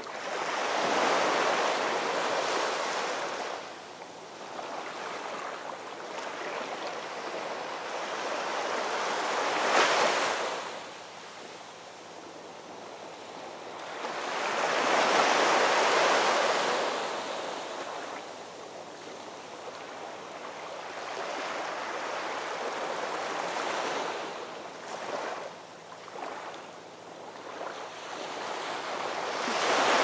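Heavy surf crashing against concrete tetrapods and rocks on a rough winter sea, with the wash of foam between. About four big crashes swell up and die away, the loudest around ten and fifteen seconds in.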